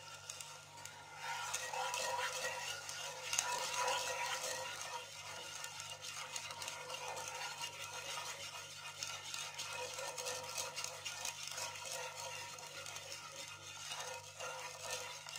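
Wooden spatula stirring sugar syrup in a nonstick frying pan, with continuous swishing and light scraping against the pan's bottom as the sugar dissolves over heat.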